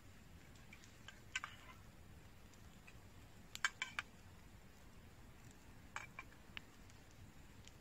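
A few sharp, light clicks over a faint low hiss: one about a second and a half in, a quick run of three or four around four seconds, and a few more around six seconds.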